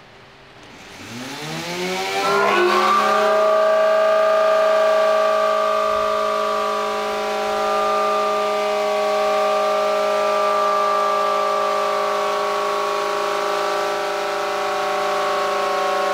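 Electric router spinning a large disc up to speed: its motor note rises steeply in pitch over about two seconds, then runs at a steady high pitch.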